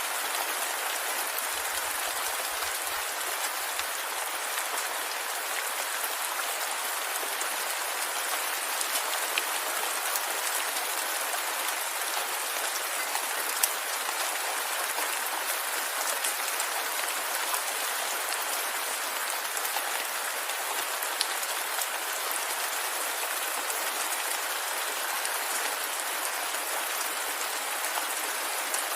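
Steady rainfall with drops pattering on a surface, an even hiss with scattered small ticks of individual drops.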